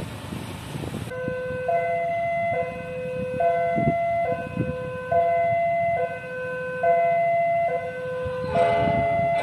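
Level crossing warning alarm sounding an electronic two-tone hi-lo pattern, the pitch switching about every second. It starts about a second in, after a moment of road traffic noise, and a second, overlapping alarm tone joins near the end.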